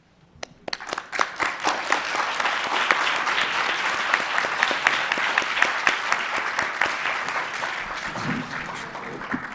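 Audience applauding: many hands clapping, starting about half a second in, holding steady and slowly thinning toward the end.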